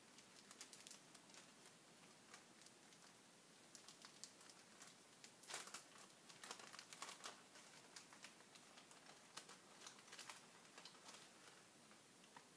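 Faint, irregular light clicks and crackles over quiet room tone, a little busier in the middle.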